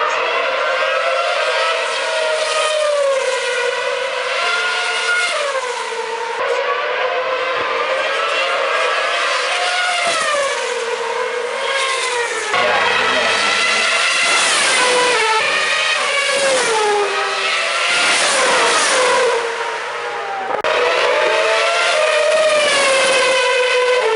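2012 Formula One cars' 2.4-litre V8 engines going past at high revs, one pass after another: the pitch falls as a car slows for the corner and climbs again as it accelerates away. The sound shifts abruptly several times where shots are spliced together.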